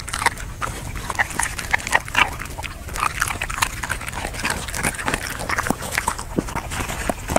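A dog chewing and crunching food, with a close run of irregular wet clicks, crackles and smacks.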